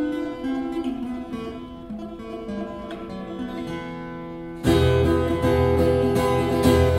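Taylor 314CE acoustic guitar played fingerstyle: soft, ringing picked notes over a stepwise falling line. About four and a half seconds in, it jumps suddenly to loud, full chords.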